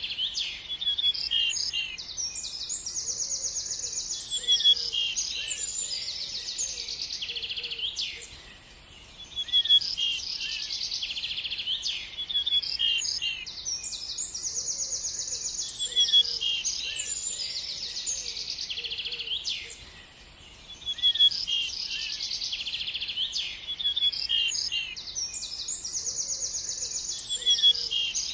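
Several small birds chirping and trilling together in quick, high notes, with brief lulls about nine and twenty seconds in; the same stretch of song repeats about every eleven seconds, as a loop.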